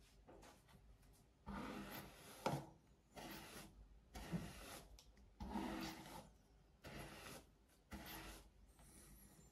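A series of six short rubbing, rasping strokes, each lasting under a second, coming roughly once a second with short quiet gaps between them.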